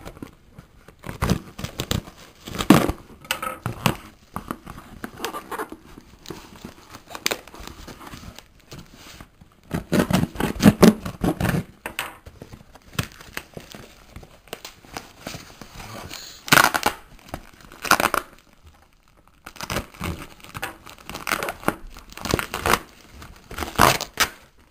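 Packaging being unwrapped by hand: crinkling and tearing of wrapping material, in irregular bursts.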